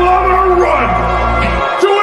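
Background music with a heavy, sustained bass that cuts out suddenly about a second and a half in, leaving higher gliding melodic lines.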